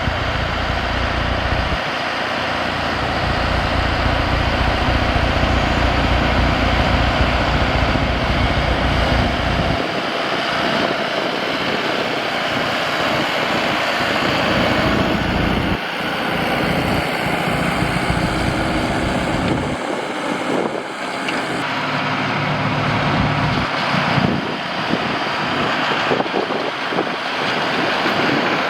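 Tractor-mounted snowblowers running at full power and throwing snow, a steady loud rush with engine noise underneath. The low engine sound shifts abruptly several times, as one shot cuts to the next.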